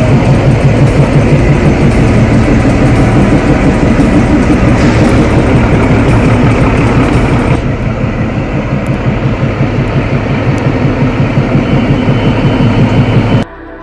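Narrow-gauge train's diesel locomotive running with a loud, steady low rumble. The sound cuts off abruptly near the end.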